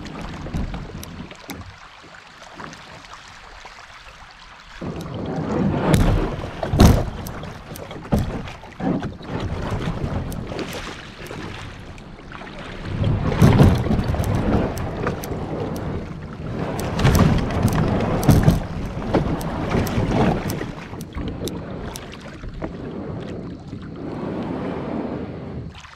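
Water sloshing and splashing around a kayak in irregular surges, with sharp knocks against the hull. Wind noise on the microphone runs through it.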